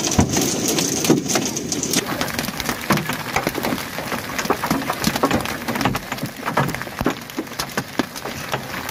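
Hailstones pelting down in a heavy hailstorm: a dense, rapid, irregular stream of hits on the road and cars over a steady rush of falling hail.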